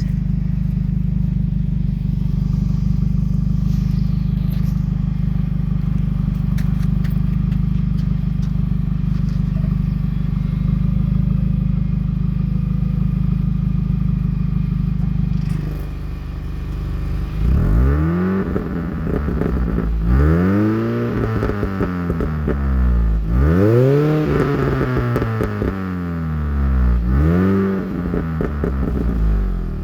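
2006 Mini Cooper S's supercharged four-cylinder engine idling steadily through a JDM Speed muffler bypass exhaust. From a little past halfway it is revved again and again, five or six times, each rev rising and falling in pitch.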